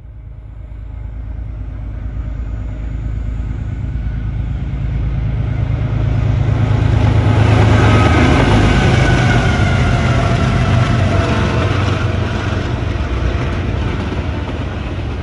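BNSF diesel freight locomotives passing close by: a loud engine rumble that builds as they approach, is loudest about eight seconds in as they go past, then slowly eases as the train rolls on.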